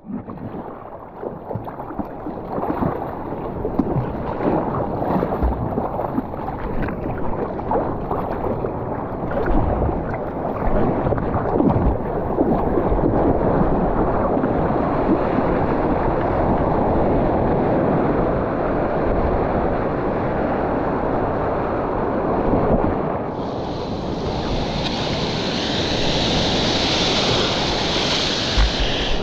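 Ocean surf washing continuously, with wind rushing over the microphone. A brighter, higher hiss joins near the end.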